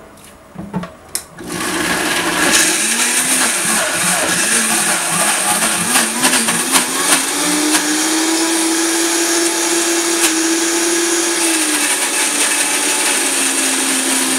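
Countertop blender switching on about a second and a half in, after a few knocks of handling, and running loud as it blends soaked cashews, coconut meat and dates into a thick cream, with a tamper pushed down through the lid. Its motor pitch wavers for several seconds as the thick mix churns, then holds steady, and drops a little near the end.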